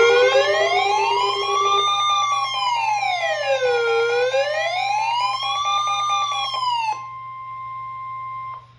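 Emergency alert siren wailing, sweeping smoothly up and down twice at about four seconds a sweep, over steady alert tones. About seven seconds in, the siren and most of the tones cut off suddenly, leaving a single steady tone for about another second and a half.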